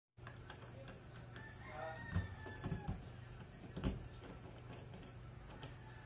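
Metal clicks of a key in the small keyed lock of a cable-type refrigerator safety lock, three sharp ones at about two, three and four seconds in. A rooster crows faintly about two seconds in, over a low steady hum.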